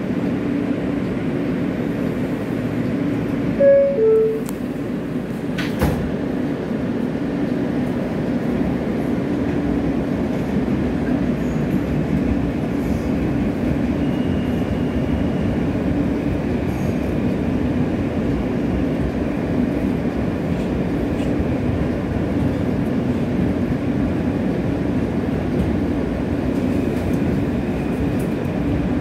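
Inside a New York subway car on the F line: a two-note falling door chime about four seconds in, a knock as the doors shut, then the car's steady running noise as the train travels along the elevated track.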